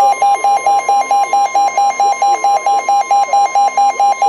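NOAA Weather Radio alert tone: a steady high tone with a loud pulsing beep over it, about four to five beeps a second. It is the alarm that announces a new weather warning, here another severe thunderstorm warning.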